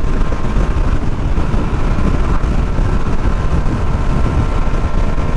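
Steady wind rush on the microphone and the running engine of a Yamaha NMAX 155 scooter under way, with a faint steady whine.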